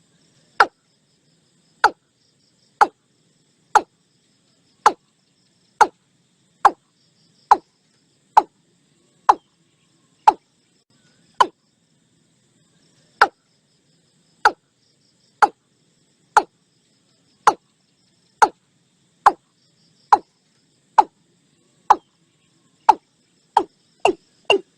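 Watercock calling: a series of short, sharp, slightly downward-sweeping notes about one a second, coming faster near the end.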